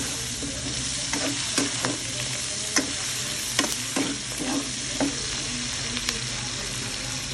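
Pork pieces with onion and garlic sizzling steadily in oil in a non-stick wok while a ladle stirs them. The ladle's strokes scrape and knock against the pan at uneven intervals, about once or twice a second.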